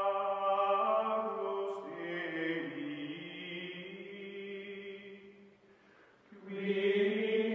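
Outro music of sustained, chant-like voices holding long notes. It fades almost away about six seconds in, then swells back.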